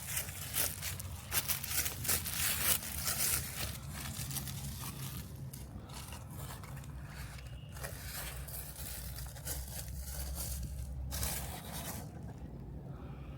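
Camera handling noise: scraping, rustling and clicking against the microphone, thickest in the first few seconds, over a low rumble.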